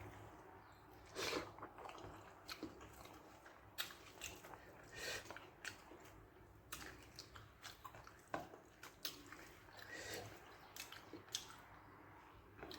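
Close-up mouth sounds of a person eating rice mixed with kara kuzhambu: irregular chewing, wet smacks and lip clicks, faint.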